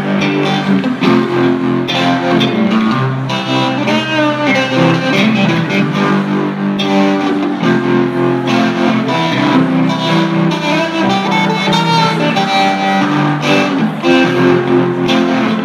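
Live band of electric guitars playing an instrumental passage: held chords with a wavering lead note about four seconds in.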